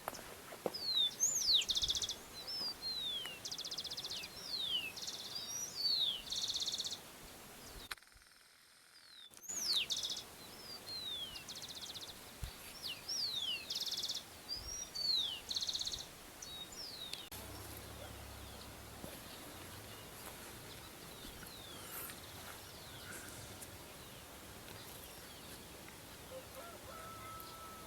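A songbird singing outdoors: repeated phrases of quick, high sliding whistles alternating with short buzzy trills, strong for the first half and fainter, scattered calls later over a steady background hiss. All sound briefly drops out for about a second and a half around eight seconds in.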